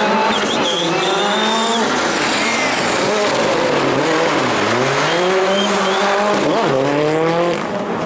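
Ford Fiesta rally car's engine revving hard, climbing in pitch as it accelerates, dropping back as it slows for a bend about halfway through, then climbing again as it pulls away.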